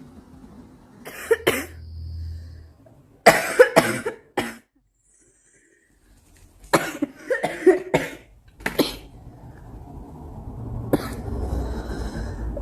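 A woman coughing in three bouts of several harsh coughs each, a cough she calls a smoker's cough.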